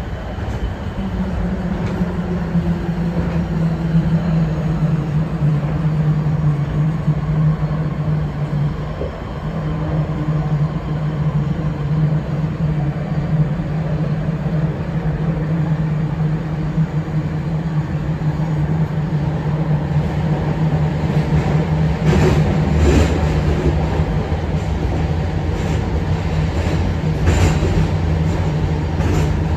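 Interior running noise of a Sendai Subway Tozai Line 2000-series linear-motor train: a steady low hum over the rumble of the wheels on the rails. A few sharp clicks and knocks from the running gear come about two-thirds of the way through and again near the end.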